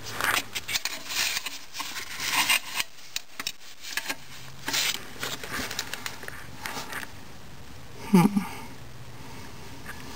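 Scattered scraping and clicking of a pry tool working against parts inside a 4L80E transmission case, prying at the reverse band. A brief squeak about eight seconds in is the loudest sound.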